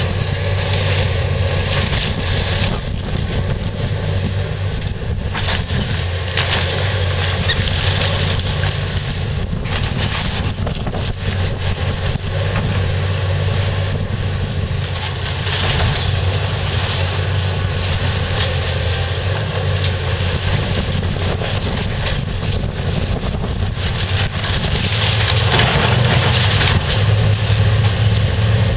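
Komatsu PC360LC hydraulic excavator's diesel engine running steadily under load, with irregular crunching and cracking of wooden framing and debris as the bucket breaks into the building. The engine grows louder near the end.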